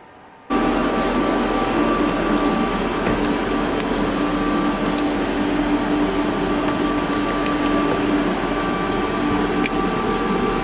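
Loud, steady machine hum and whir with a few constant tones in it, starting abruptly about half a second in.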